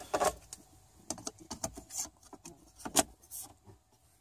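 Hard plastic and fiberglass dash-mount parts being handled and fitted together: a string of light clicks and knocks, the loudest about three seconds in.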